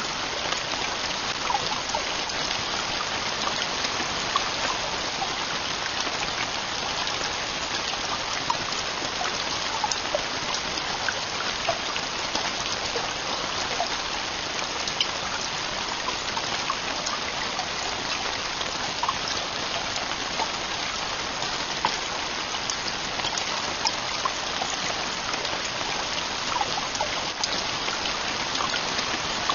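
Heavy rain falling steadily on a camping tent, an even rushing hiss dotted with many separate sharp drop hits.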